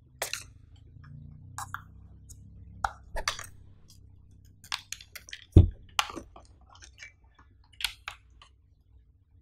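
Handling noise from a white charging cable and a plastic power bank: scattered sharp clicks, taps and short rustles as the cable is uncoiled and its connectors are plugged into the power bank and the laptop. A dull knock a little past halfway is the loudest sound.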